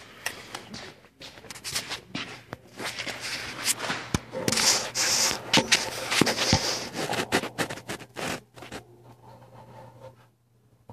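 Knocks, scrapes and rustles of panels and cardboard being handled and moved about on a worktable, dense in the middle and thinning out after about eight seconds. A steady low hum runs underneath.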